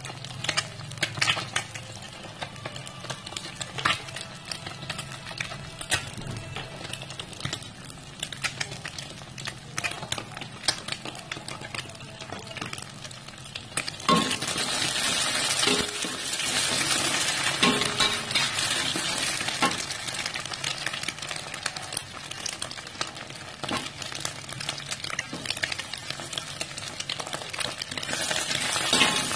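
Egg frying in oil in a wok with chopped shallots and garlic, a metal spatula scraping and tapping against the wok. About halfway through the sizzling gets much louder and stays that way, rising again near the end as meatballs go in and are stir-fried.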